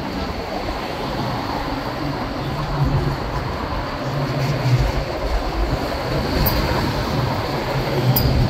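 Hong Kong double-decker electric tram running along its rails, heard from on board the upper deck: a steady rumble with a low hum that comes and goes.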